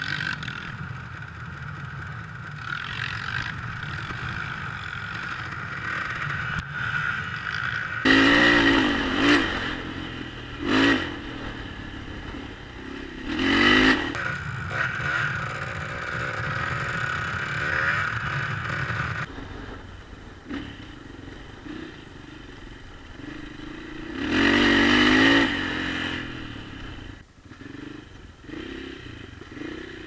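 Dirt bike engine running as the bike is ridden over a rough dirt track, opened up in loud bursts of throttle several times, the biggest about eight seconds in and again about twenty-five seconds in. The bike clatters over the bumps.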